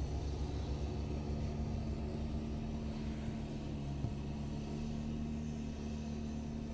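Engine of a wheeled snowblower tractor running steadily, a continuous low drone with a steady hum. It is heard through a window, and it eases slightly as the machine moves away. There is one brief tick about four seconds in.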